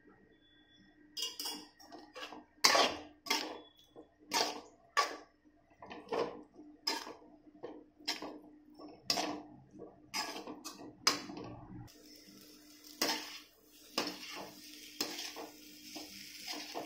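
A metal spatula scrapes and clanks against a metal kadai, roughly one stroke a second, as boiled fusilli pasta is stirred and tossed in masala. About twelve seconds in, a frying sizzle rises under the strokes.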